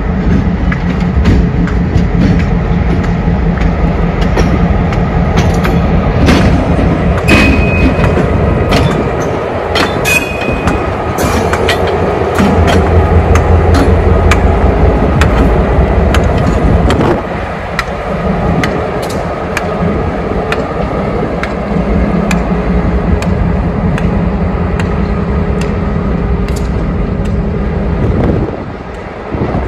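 Four-axle diesel road-switcher locomotive passing close by: a steady engine drone with wheels clicking over rail joints and two brief high squeals a few seconds in. The sound falls away near the end as the locomotive pulls off with its train.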